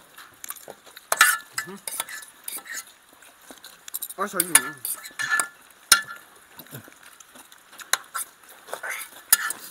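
Metal forks and spoons clinking and scraping against enamel pots as noodles are eaten, with sharp clinks scattered through, a few of them loud. A brief voice comes in around the middle.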